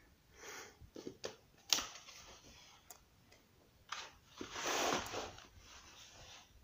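Pages of a paperback colouring book being handled and turned: a few light clicks and rustles of paper, then a longer swish of a page turning about four seconds in.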